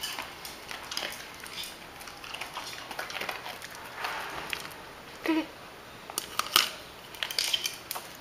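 Small dog crunching pieces of dry kibble, with sharp clicks, likely its claws on the tile floor. A short falling-pitched call comes a little after five seconds.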